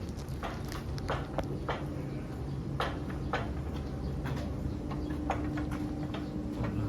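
Irregular sharp clicks and taps, a few each second, over a steady low hum.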